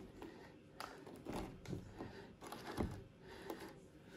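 Faint rustling and a few light taps from tufts of dry grass being handled and pushed into place by hand.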